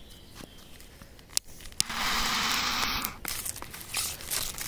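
Firecracker packaging being handled: a few light clicks and rustles, then a wrapper torn for about a second, then more small handling clicks.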